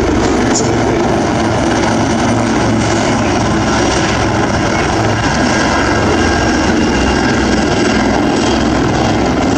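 Two Royal Navy AgustaWestland AW159 Wildcat helicopters flying past in close formation, their rotors and engines giving a loud, steady noise.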